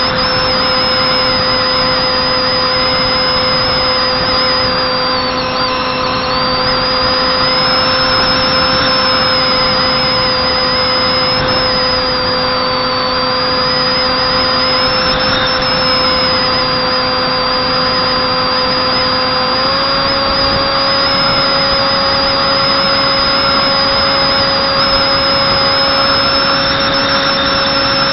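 The Zeta Wing Wing Z-84's electric motor (Turnigy 28-26 2200kv) and 6x4 propeller run steadily in flight: a constant whine with rushing air noise. The whine steps slightly higher in pitch about 20 seconds in, and a thin wavering high-pitched tone sits above it throughout.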